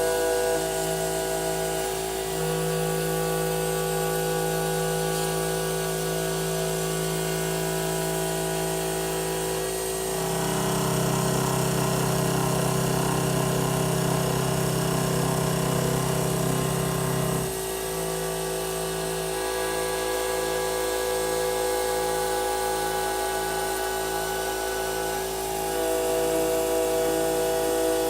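CNC router spindle running steadily as an 8 mm carbide cutter mills aluminum. It gets louder and rougher for about seven seconds in the middle, then settles back to the steady tone.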